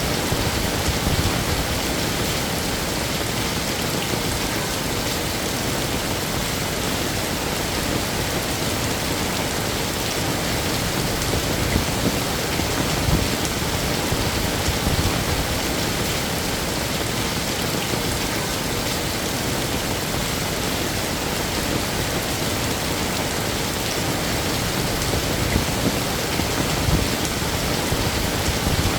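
Heavy rain falling steadily, a dense even hiss of rain on hard surfaces, with occasional brief swells.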